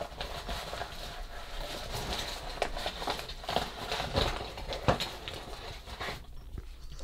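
Plastic padded mailer crinkling and rustling as it is handled and a hand rummages inside it, a steady run of irregular crackles that dies down about six seconds in.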